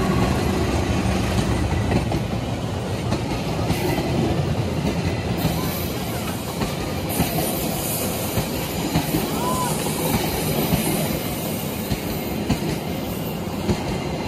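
A passenger train's coaches roll past close by at speed, their wheels clacking over the rail joints. The CC 206 diesel-electric locomotive's low rumble is loudest in the first second, as it goes by at the head of the train.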